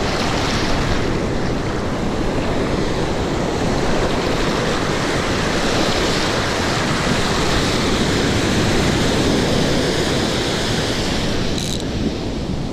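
Ocean surf washing in and out around the feet, a steady rushing wash, with wind buffeting the microphone.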